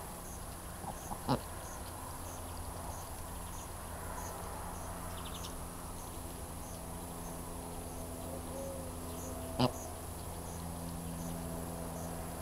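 Steady outdoor ambience: a low hum with a faint, regular high ticking like a cricket chirping, broken by two short sharp clicks, about a second in and again near ten seconds.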